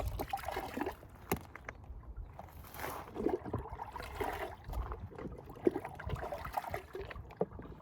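Water sloshing and trickling while dishes are washed by hand, with scattered knocks and clinks of dishes throughout.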